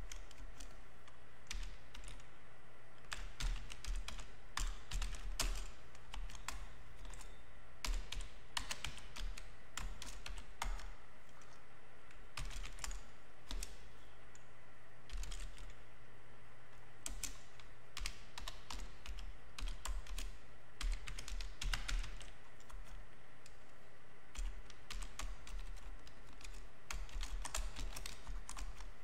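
Typing on a computer keyboard: irregular runs of key clicks broken by short pauses, over a faint steady low hum.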